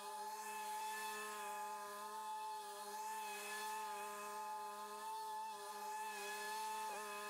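Zero-turn lawn mower running steadily while mowing, a level engine drone with a whine, dipping briefly in pitch near the end.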